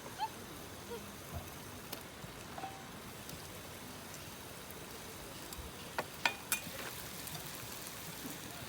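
Food sizzling steadily in a frying pan, with a few sharp clicks of a utensil against the pan about six seconds in.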